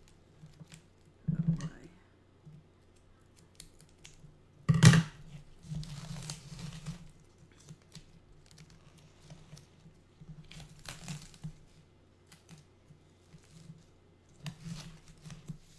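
Plant shipping packaging being torn open and crinkled by hand as a potted plant is unwrapped, with one loud sharp rip about five seconds in and several shorter bouts of rustling after it.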